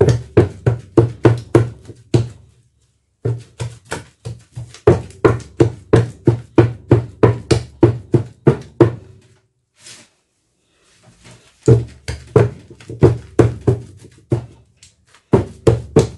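Wooden pestle thudding down into boiled yam in a wooden mortar, about three or four strokes a second in runs broken by two short pauses. The yam is being mashed before the pounding proper starts.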